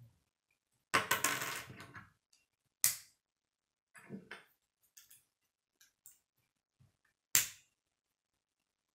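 K'nex plastic rods and connectors being handled and snapped together: about a second of clattering a second in, then a sharp snap about three seconds in, a few lighter clicks, and another sharp snap near the end.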